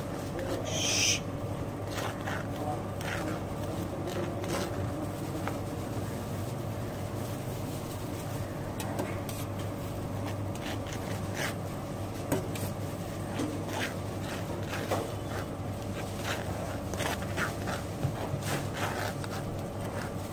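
A knife scraping lightly across toasted bread as it spreads a creamy sauce, in short irregular strokes, over a steady low hum.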